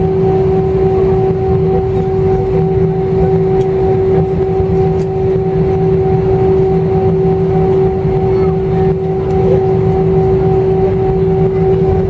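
Airbus A318 cabin noise while taxiing: the jet engines at idle give a steady whine over a low rumble.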